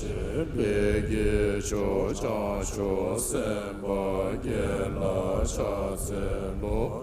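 Buddhist monks chanting prayers together in a low recitation on a steady pitch, the chant rising and falling in a repeating pattern.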